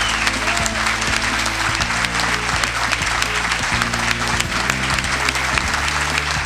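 A large audience applauding with dense, steady clapping, over background music of sustained chords.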